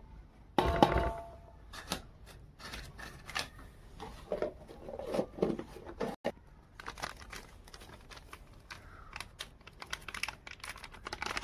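Irregular clicking, crinkling and tapping of things being handled, with a loud knock and a short ring about half a second in.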